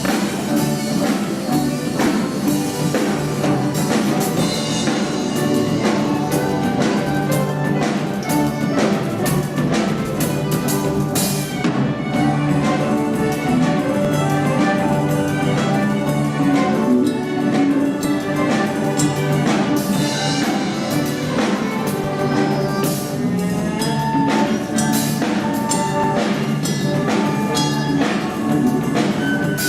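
A youth orchestra playing a lively piece of Paraguayan popular music, instruments with a steady percussion beat.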